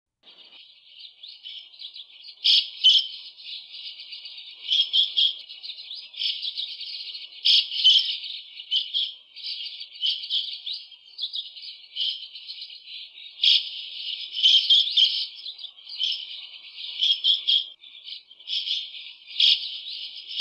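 White-cheeked starling calling: a continuous run of chattering notes, with louder, sharp calls standing out every few seconds.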